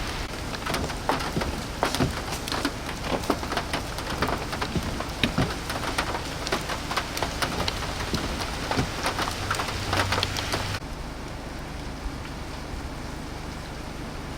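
Heavy wet snow and drips falling on surfaces: many sharp irregular taps over a steady hiss. About eleven seconds in the taps stop abruptly, leaving a quieter, even hiss.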